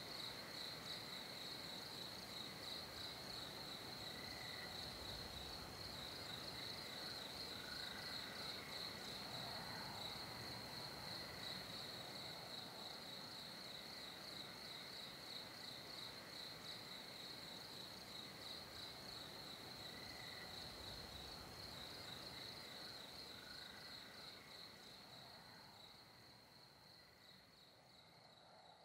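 Night ambience of crickets trilling steadily in a fast, high-pitched pulse, with fainter calls lower down, fading away over the last few seconds.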